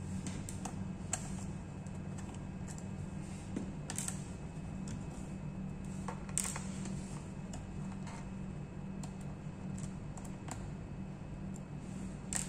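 Small, irregular clicks and taps of a laptop's plastic case and tools being handled during disassembly, a few seconds apart, over a steady low hum.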